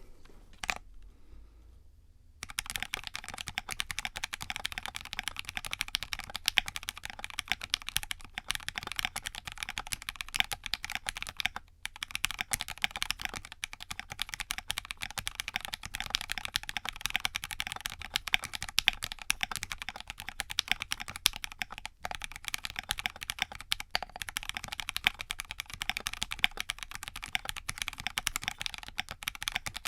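Fast, continuous typing on a budget 60% mechanical keyboard: a wood tofu case, gummy o-ring mounted, with a Delrin plate, felt plate foam and Gateron Cap V2 Milky switches. The keystrokes start about two and a half seconds in after a single click.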